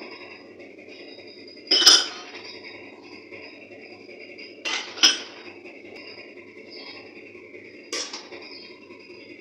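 Clinks and knocks of a steel slotted spoon and a plate against an aluminium cooking pot: a loud one about two seconds in, two close together about five seconds in, and a softer one near the end, over a steady low hiss.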